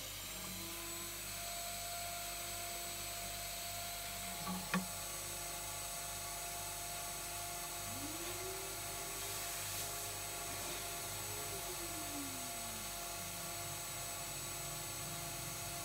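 Small drill press running steadily with a thin whine, its fine bit spinning freely. There is one sharp click about four and a half seconds in, and a tone that rises, holds, then falls away partway through.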